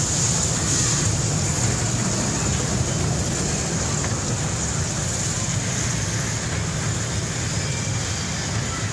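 Steady background rumble and hiss of a large indoor shopping mall, with no distinct events standing out.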